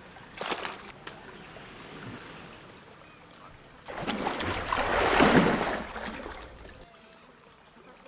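A saltwater crocodile lunging through shallow water with a loud splash, which swells about four seconds in and dies away over a couple of seconds. A steady high insect drone runs throughout.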